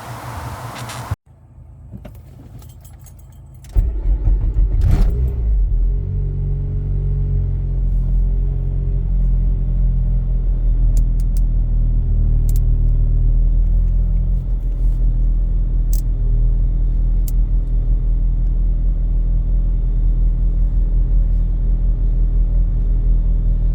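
Nissan Sentra Spec V's 2.5-litre four-cylinder engine starting about four seconds in, after a few faint clicks, then running at a steady idle.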